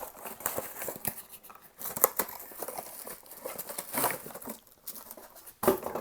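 Packaging being unpacked by hand: irregular crinkling and tearing of wrapping, with a few sharper crackles, the loudest near the end.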